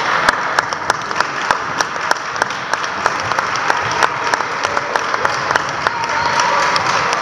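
Spectators clapping in a gym, a spread of applause with sharp single claps standing out at a fairly even pace of about three a second.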